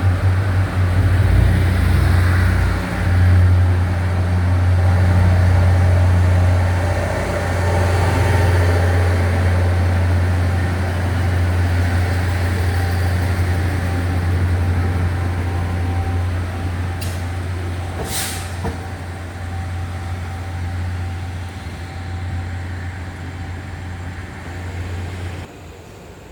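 Train running with a steady low hum that slowly fades, with a brief sharp click about eighteen seconds in; the sound drops off suddenly near the end.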